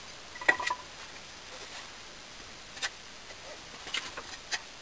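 A few scattered light clicks and taps from handling the golok blade. The sharpest, about half a second in, has a brief metallic ring, and a few more quick ticks come near the end.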